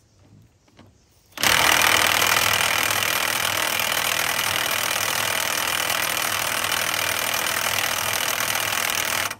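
Cordless 20-volt DeWalt impact wrench hammering continuously on an inner lug nut of a truck wheel. It starts about a second and a half in and stops abruptly near the end, with the nut not breaking loose.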